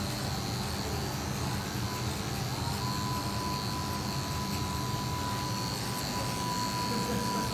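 Corded electric dog grooming clippers running steadily as they cut through a small white dog's coat, an even buzzing hum. A thin high whine joins in two to three seconds in.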